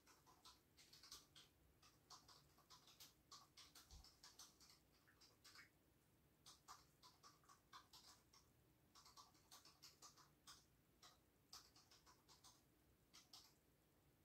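A beagle eating from a snuffle mat: faint, irregular little crunches and clicks of chewing and nosing through the fabric.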